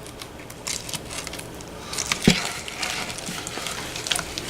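Wet glue-and-borax slime squelching and crackling as it is squeezed and worked around a bowl to soak up the leftover water, with small irregular clicks and one sharper thump about two seconds in.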